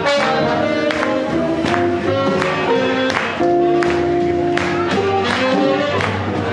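Swing jazz band playing with a steady beat: held notes over regular drum strokes.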